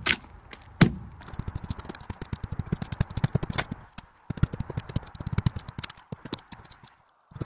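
Hand tool knocking and scraping at the rotten plywood core of a fiberglass boat transom: two sharp knocks, then quick runs of irregular crackling clicks as the rotted wood breaks away.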